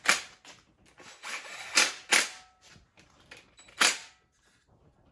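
Four sharp clacks or snaps: one at the start, two close together about two seconds in, and one near four seconds in.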